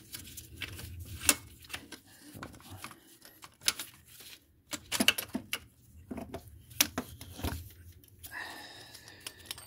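Irregular metallic clicks and knocks of a belt pulley and tools being handled against an engine's alternator bracket, with a brief rasp about a second before the end.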